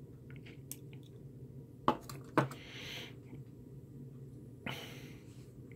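Small electronic parts and a pair of pliers being handled: two sharp clicks about half a second apart, with soft breaths between.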